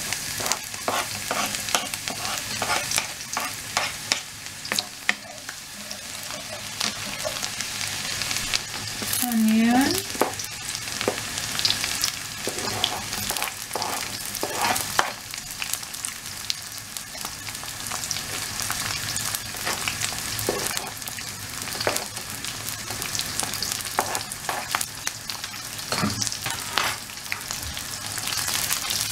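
Chopped garlic, then sliced onion, sizzling in hot vegetable oil in a wok, with a steady hiss throughout. A wooden spatula scrapes and knocks against the pan again and again as the food is stirred.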